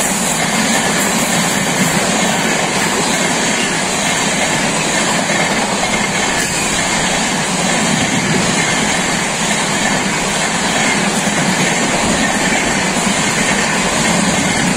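LHB parcel van coaches of a passing train running by at speed close by: a loud, steady rumble and rush of wheels on rail.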